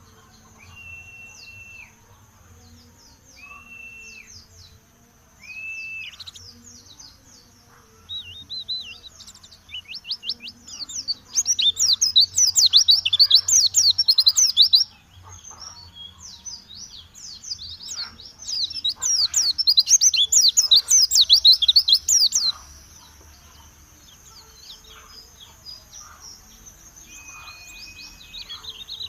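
Pleci (white-eye) bird singing: two long, loud stretches of fast, high chattering trills about eleven and eighteen seconds in, with softer twittering around them. A few flat, level whistled notes come near the start and again near the end.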